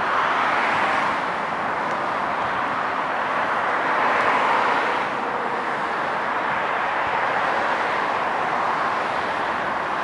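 Road traffic going by: a steady rush of tyre and engine noise that swells twice as vehicles pass, once right at the start and again about four seconds in.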